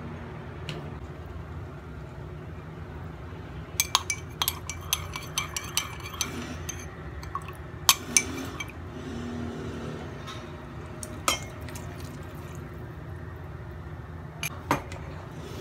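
Metal spoon clinking against a ceramic cup while stirring a tapioca-starch-and-water slurry: a quick run of clinks starting about four seconds in and lasting some four seconds, then two single clinks later. A steady low hum runs underneath.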